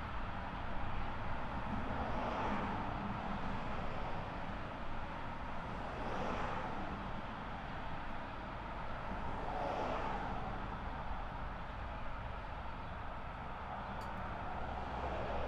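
Outdoor ambient noise of distant traffic: a steady low rumble with three swells of passing noise, about every three and a half seconds.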